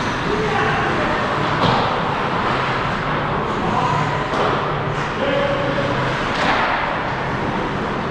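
Sounds of a hockey game in a rink: players' shouts over a steady hum, with sharp knocks of sticks and puck about three times.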